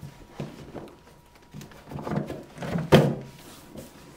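The deflated drop-stitch hull of an inflatable canoe is being folded over by hand: rubbery handling and rustling noise from the stiff hull material, a few light knocks, and one sharp thump about three seconds in.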